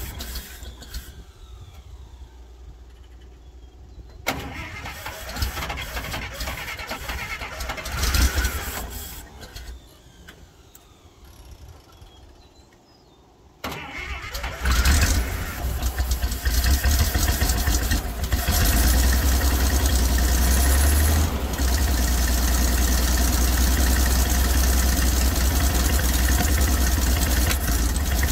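Dodge M37's flathead inline-six being started for the first time after sitting: a couple of short tries on the starter, then it catches about halfway through and keeps running steadily.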